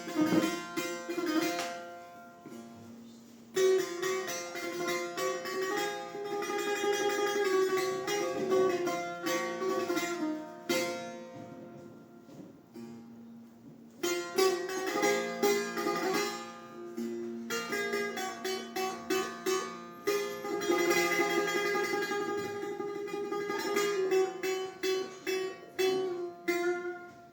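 Solo Persian setar improvisation in dastgah-e Shur: four-stringed long-necked lute plucked with rapid runs of notes and sustained drone pitches, easing into quieter, sparser passages twice before picking up again.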